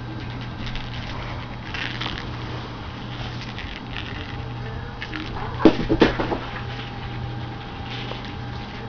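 Soft pattering and rustling of a house cat scampering about on carpet over a steady low hum, with a short cluster of louder thumps about six seconds in.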